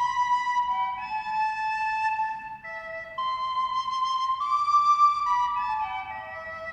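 Instrumental music: a slow melody of held notes on a flute-like wind instrument. The line reaches its highest note about halfway through and steps down through lower notes near the end.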